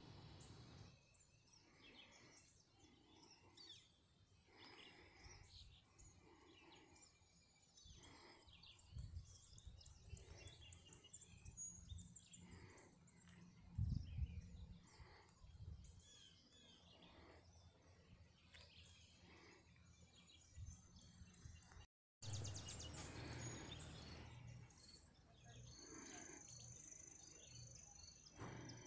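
Faint outdoor ambience with scattered bird chirps and twittering, and a thin high trill held for a couple of seconds near the end. A few low thuds, the loudest about halfway through.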